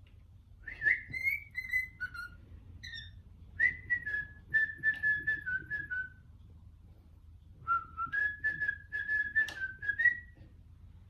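Pet cockatiel whistling a melody in three short phrases of clear notes, each a little over two seconds long with a pause between.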